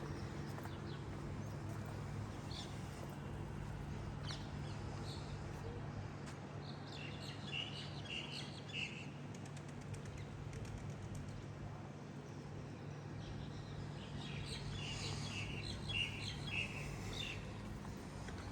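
Small birds chirping in two bursts of quick high calls, one about seven seconds in and another near the end, over a steady low hum.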